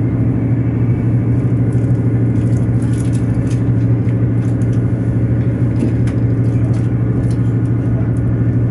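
Underfloor Cummins diesel engine of a Class 185 diesel multiple unit running steadily under power as the train pulls away, a loud low drone at an unchanging pitch, with faint clicks and rattles now and then.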